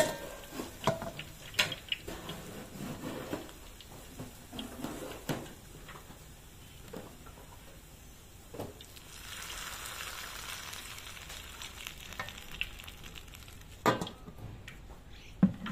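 Freshly fried fish in a metal bowl sizzling and hissing as a liquid is poured over it, strongest for a couple of seconds past the middle. Scattered metal clinks come from the wire basket and bowl, and a sharp metal knock near the end as the lid goes on.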